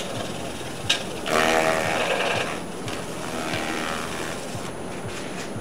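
Wood lathe running while a rag held against the spinning Kentucky coffee tree bowl wipes on finish. After a click about a second in, the rag gives a loud moaning squeal for about a second, and a fainter one follows around three and a half seconds.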